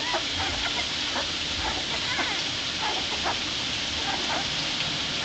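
Newborn pit bull puppies giving short, high squeaks now and then while they nurse, over a steady hiss.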